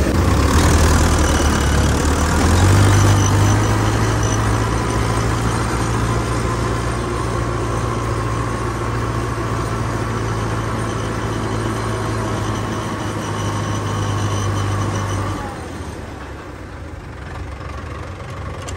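Tractor diesel engine running steadily while driving, heard from the driver's seat. Its note steps up a little about two and a half seconds in, then drops away and goes quieter about fifteen seconds in.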